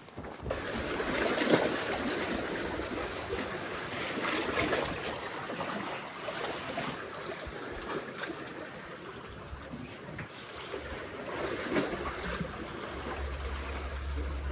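Sea waves washing and sloshing among concrete tetrapod breakwater blocks, swelling in surges every few seconds, with a low wind rumble on the microphone near the end.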